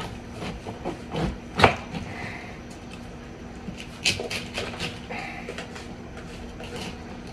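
Kitchen knife cutting into a large, tightly packed head of cabbage: irregular crisp crunches and snaps as the blade splits the leaves, the sharpest about one and a half seconds in and a quick run of them around four to five seconds.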